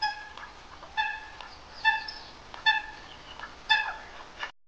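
An animal's short, high-pitched calls, five of them about a second apart.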